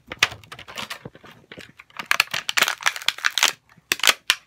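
Handling noise: crinkling, rustling and crackling of something being handled close to the microphone, with a few sharp clicks, busiest in the middle.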